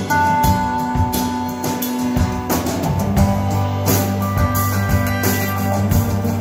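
Live band playing: two acoustic guitars strumming over a drum kit with steady drum and cymbal hits.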